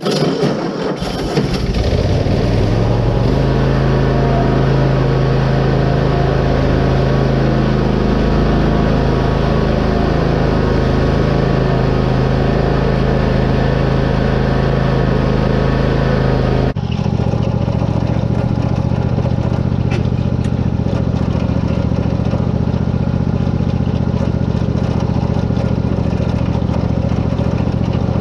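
Riding lawn mower engine coming up to speed over the first few seconds, then running steadily. About 17 seconds in the sound changes suddenly to a lower, rougher steady running.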